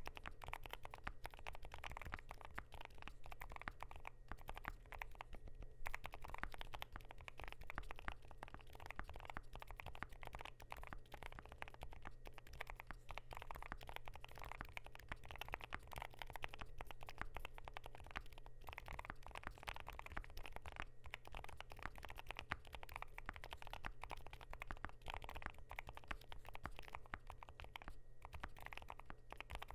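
Continuous typing on a KBD8X MKIII mechanical keyboard with Gateron Zero Degree silent switches, a polycarbonate plate and lubed stabilizers: a dense, steady run of keystrokes with brief pauses.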